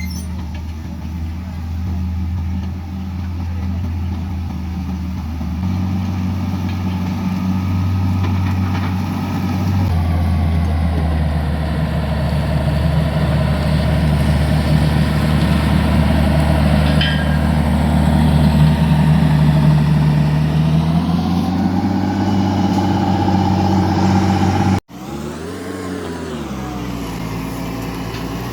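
Heavy diesel engine of road-construction machinery running steadily, a low drone that grows louder towards the middle. About 25 seconds in, the sound cuts off abruptly and gives way to another engine whose pitch briefly rises and falls.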